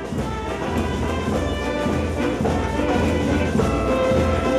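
Music with held melody notes over a steady low pulse.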